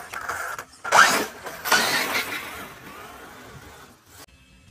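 Arrma Nero 6S BLX RC monster truck's brushless electric drivetrain accelerating away on loose dirt in three surges, with a rising motor whine and tyres spraying dirt. The sound fades as the truck pulls away, then cuts off abruptly about four seconds in.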